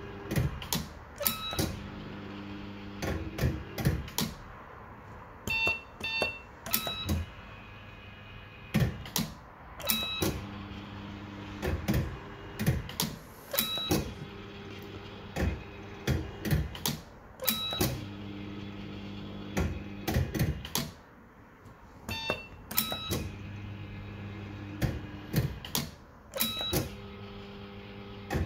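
Bell-Fruit Firecracker fruit machine playing one spin after another, about every four seconds. A steady hum runs for a couple of seconds while the three reels spin, then the reels stop one after another with sharp clunks, and short electronic beeps sound between spins.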